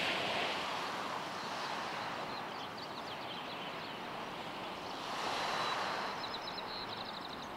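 Outdoor ambience: a steady rushing noise that swells and fades, with a small bird's rapid high trill heard twice, about two and a half seconds in and again near the end.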